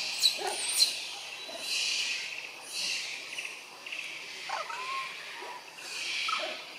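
Outdoor insect drone, hissing high up, that swells and fades every second or two. Two sharp snaps come near the start, and a few short chirping and gliding calls are heard later on.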